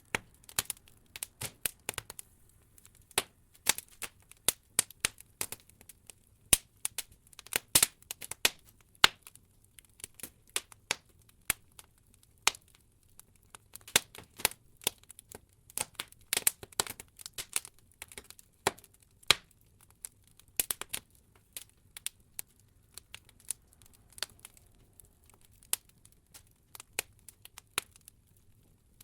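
Logs burning in an open wood fireplace, crackling with irregular sharp pops and snaps, a few much louder than the rest. The pops thin out for a few seconds past the middle.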